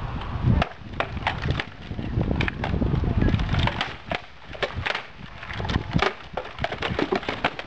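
Many sharp, irregular clacks and knocks of sticks striking, over a low wind rumble on the microphone.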